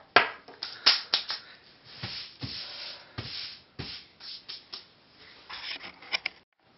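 Hands brushing drilled plastic shavings across a wooden tabletop: several taps and knocks as a small plastic housing is put down, and rubbing swishes of the hand sweeping the desk, most of them around two to three seconds in and again near the end.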